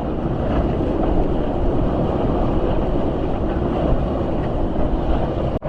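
Gale-force wind, around 40 knots, blasting across the microphone aboard a sailboat: a loud, steady rumble and hiss, with a brief dropout near the end.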